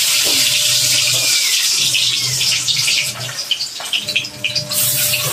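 Cassava slices deep-frying in a wok of hot oil: a steady sizzle, with scattered crackles from about three seconds in.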